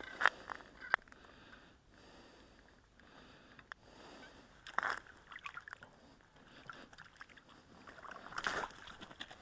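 Brief wet slaps and scrapes on slushy ice as a small freshly caught fish is handled and flops beside an ice-fishing hole: a few sharp ones at the start, a louder bunch around the middle and another near the end.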